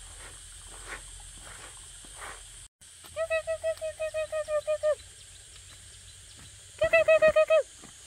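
An animal call: two runs of quick, evenly repeated pitched notes, about a dozen in the first and about eight louder ones in the second, after a few soft scraping strokes.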